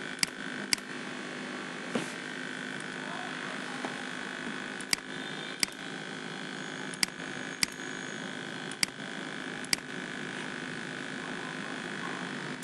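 Computer mouse clicking about nine times, singly and in quick pairs, over a steady background hum and hiss.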